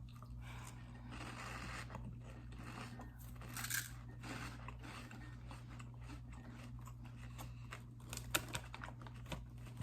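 Baked cheddar corn puffs being bitten and chewed, with faint scattered crunches over a steady low hum.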